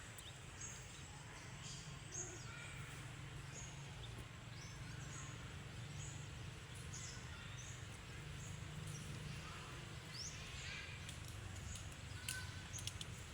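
Small animal chirping: short, high, falling chirps repeated about once or twice a second over a steady low hum, with a few sharp clicks near the end.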